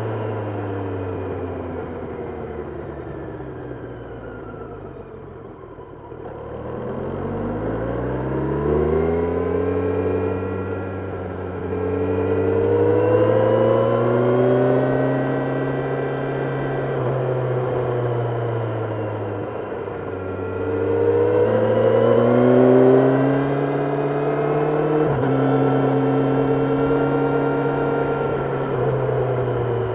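Kawasaki Ninja 1000SX's inline-four engine on the move: the revs fall away for the first few seconds, then climb hard under acceleration, ease off and pull up again twice, with a sudden drop in pitch near the end.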